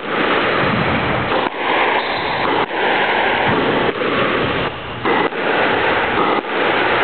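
Squash rally: the ball is struck and hits the walls about once a second. The shots are heard as sharp breaks in a loud, steady rushing noise.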